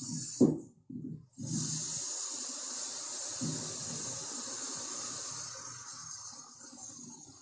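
Corona discharge on a high-voltage transmission line: a steady high hiss over a lower, uneven rumble, the sign of the air around the conductors breaking down electrically. There is a sharp click and a brief cut-out about half a second in, and the sound fades gradually toward the end.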